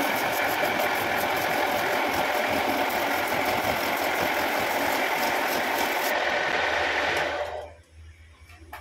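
Handsaw teeth scraping a guava root spinning on a wood lathe: a loud, steady rasping cut over the running lathe. The rasping stops about six seconds in, the lathe noise dies away about a second later, and a couple of light knocks follow near the end.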